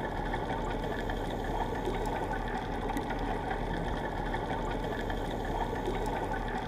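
Steady, muffled underwater noise picked up by a GoPro Hero 4 inside its waterproof housing, with a few faint scattered clicks.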